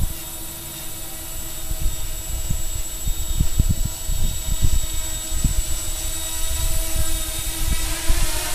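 Xaircraft X650 quadcopter flying on its four electric motors and very small propellers, a steady multi-tone whine that holds its pitch, with gusts of wind rumbling on the microphone.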